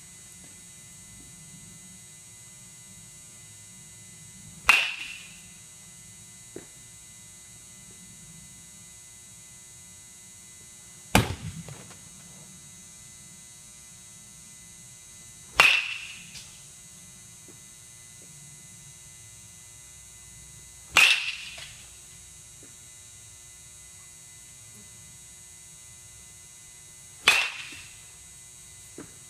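A Marucci baseball bat hitting pitched balls: five sharp cracks, one every five or six seconds, each with a short ringing tail. A steady hum runs underneath.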